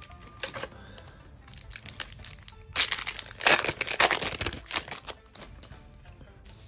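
Foil wrapper of a Yu-Gi-Oh! Dimension Force booster pack crinkling as it is torn open by hand, loudest for about two seconds near the middle, after lighter rustling as the pack is handled.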